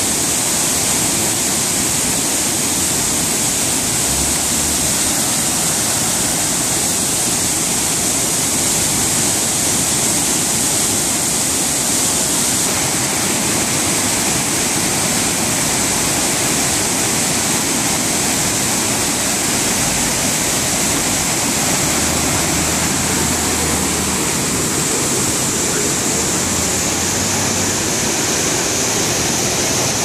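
Swollen waterfall cascading down rocks and flooding across a road: a loud, steady rush of water.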